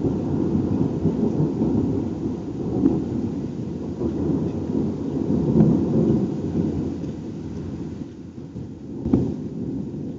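Rolling thunder from a nearby thunderstorm: a deep rumble that swells and fades several times, dying down near the end, with one short sharper crack about nine seconds in.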